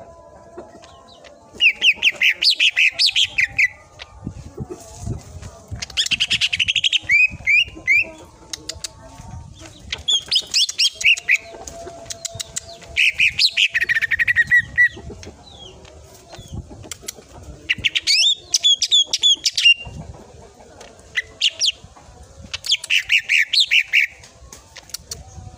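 Green leafbird (cucak ijo) singing in about seven bursts of rapid, sharp, high notes, each burst one to two seconds long with short pauses between: the fast-fire 'tembakan' song.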